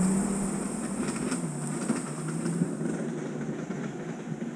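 Off-road buggy's engine running at a steady pitch as the buggy drives forward and away down a muddy slope, getting quieter as it moves off.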